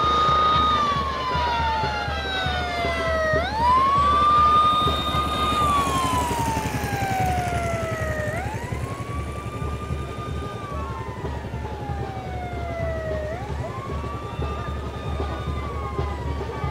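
Siren wailing in a slow repeating cycle. Each cycle is a quick rise to a held high note, then a long slow fall, about every five seconds.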